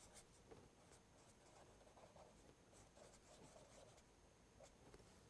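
Faint scratching of a felt-tip marker writing on paper, in short, scattered strokes.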